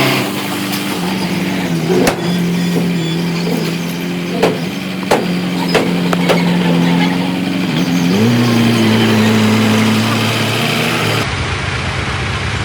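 Diesel engine of heavy earthmoving machinery running, its pitch dropping about a second in and rising again around eight seconds in, with several sharp metallic clanks in the middle. The sound changes abruptly near the end.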